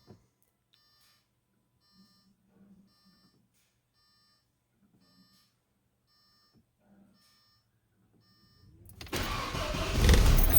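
Faint electronic beeping repeating about every two-thirds of a second, then about nine seconds in an Audi 1.8T AEB four-cylinder turbo engine starts up and runs loudly.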